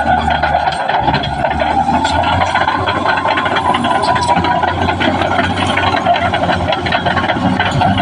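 Caterpillar D6R XL crawler bulldozer at work: the diesel engine runs steadily under load over a constant rattling clatter from the steel tracks.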